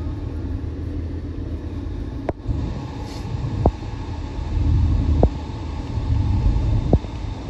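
Cabin noise of a BMW E39 on the move: a steady low rumble from the engine and the road. Several short, sharp knocks come through it.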